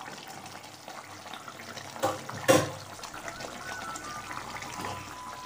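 Curry simmering in a pan with a steady bubbling hiss. A utensil knocks sharply against the pan twice, about two and two and a half seconds in.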